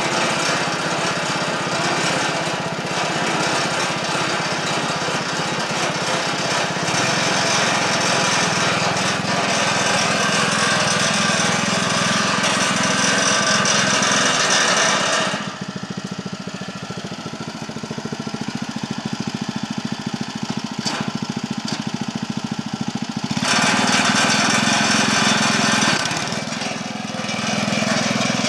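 Small engine of a motorized wheelbarrow running steadily as the machine is driven. About halfway through it turns quieter and duller for several seconds, then comes back up to its full, louder sound.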